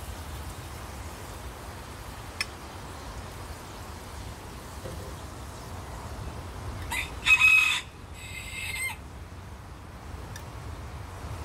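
A rooster crows once, about seven seconds in: one loud call in two parts, lasting about two seconds. A single sharp click comes about two seconds in.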